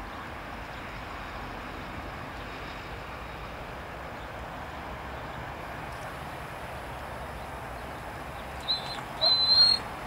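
Distant twin-engine Eurocopter AS 355 Ecureuil helicopter in flight, a steady even noise. Near the end, a short high whistle-like call sounds twice, the second longer and louder than the helicopter.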